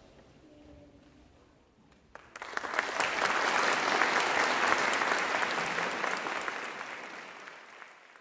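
Audience applauding after the last faint notes of a choral piece die away. The clapping starts suddenly about two seconds in, swells, and fades away near the end.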